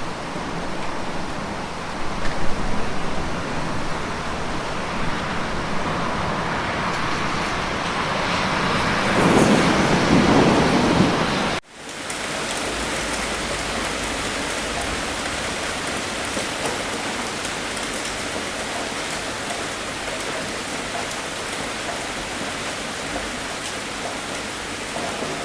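Steady heavy rainfall. A low rumble of thunder swells from about eight seconds in, then the sound cuts off abruptly just under halfway through and resumes as a steadier rain with no thunder.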